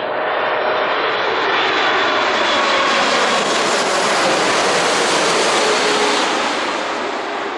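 Boeing 747 freighter's four jet engines passing low overhead on landing approach, gear down. A loud jet noise builds to a peak in the middle and fades toward the end. Faint engine whine tones slide down in pitch as the aircraft goes by.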